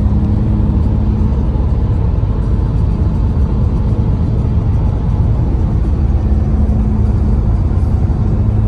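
Steady road and engine noise heard inside the cabin of a Honda sedan cruising at highway speed: a constant low rumble of tyres and drivetrain with a faint steady hum.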